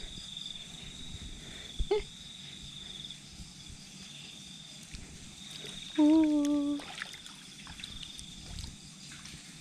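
Night insects, crickets, trilling steadily on one high note. A short knock comes about two seconds in, and a brief hummed voice sound, the loudest thing, comes about six seconds in.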